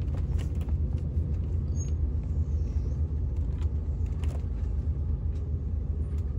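RV engine running at a steady low rumble, heard from inside the cab while the rig idles or creeps forward in a queue of vehicles.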